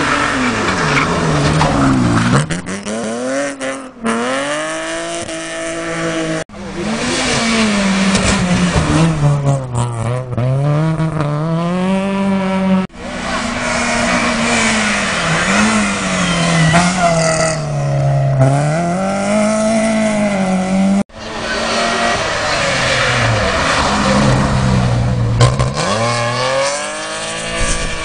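Rally cars at full throttle on a closed road stage, engines revving up and dropping back again and again through gear changes, in several short clips that cut off abruptly. Near the end a car slides through a bend with tyres squealing.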